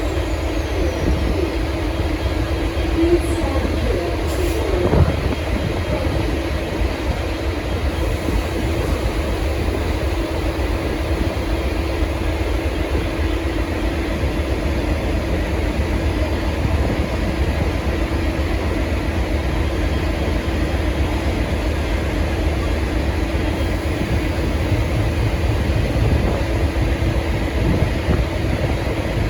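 V/Line N class diesel-electric locomotive pulling its train out, its engine running steadily: a continuous low rumble with a constant hum over it.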